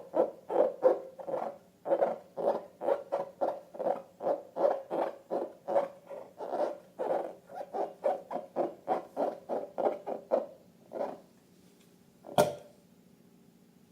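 Slime being squeezed and worked by hand, making a quick run of wet squelches about three to four a second that stops about ten seconds in. One sharp click follows near the end.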